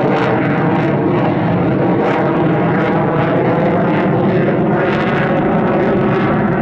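Aircraft engine noise: a steady, loud drone made of many sustained tones, holding an even level.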